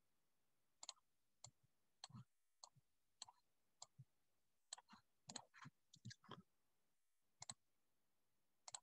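Near silence broken by faint, irregular clicks and taps, about twenty of them, from a stylus tapping and writing on a tablet.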